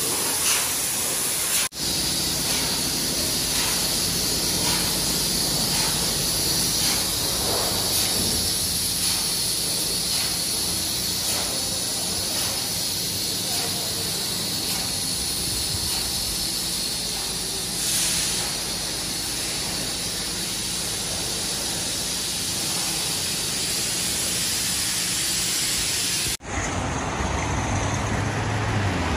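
High-pressure washer jet spraying water against a car's underside and body, a steady loud hiss over a faint pump hum. A few seconds before the end it gives way to passing road traffic.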